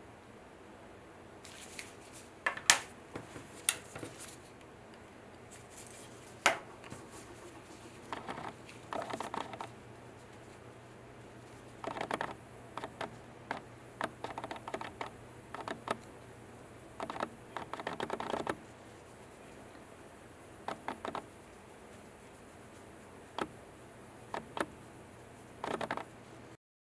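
Small polishing pad rubbing over the faces of a 3D-printed resin diamond in short, irregular strokes at a fine #60000 grit, with a few sharp clicks from the pad and stone being handled.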